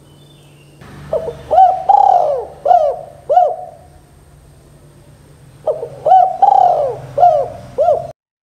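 Spotted dove cooing: two phrases of about five arched coos each, the third coo in each phrase held longest. The first phrase begins about a second in, the second near the six-second mark, and the sound cuts off abruptly just before the end.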